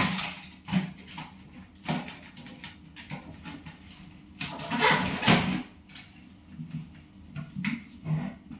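Small kitchen appliances being handled and wiped on a wooden shelf: scattered knocks and clatter, with a longer rubbing sound about halfway through.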